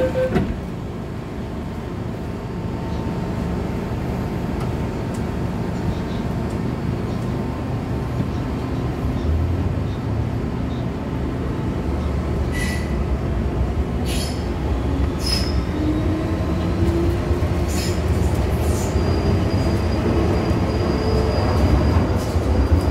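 MTR M-Train electric multiple unit heard from inside the car as it pulls out: a low running rumble builds as the train picks up speed. A traction whine rises slowly in pitch late on, and there are short sharp squeals and clicks from the wheels about halfway through.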